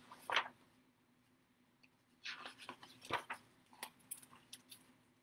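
Pages of a picture book rustling and softly clicking as they are opened and turned: one short rustle at the start, then a run of small irregular rustles and clicks through the middle.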